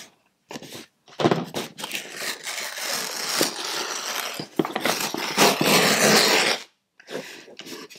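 Packing tape ripping and cardboard scraping as two taped-together cardboard boxes are pulled apart. It is a rough, noisy tearing that runs for several seconds, is loudest near the end, and then stops.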